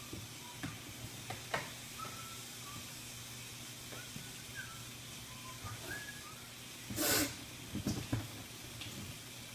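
Snake giving one short, sharp hiss about seven seconds in, a defensive warning as it is handled with tongs. A few knocks follow, with scattered faint clicks and short high chirps.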